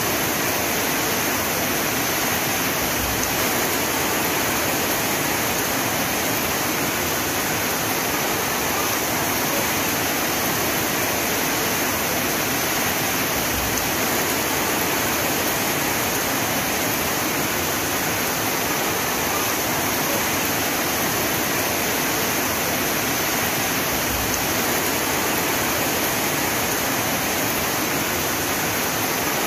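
Heavy rain falling: a steady, even hiss that holds the same level throughout.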